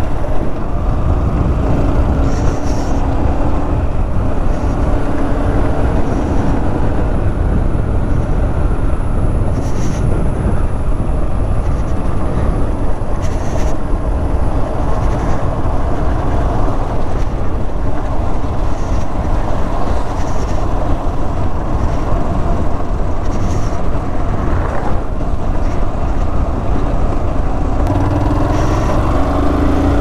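Yamaha R15 motorcycle's single-cylinder engine running under way, with wind rushing over the microphone. The engine note changes pitch near the end.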